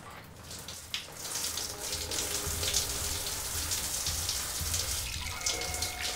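Shower running behind the curtain: a steady hiss of falling water that starts about a second in.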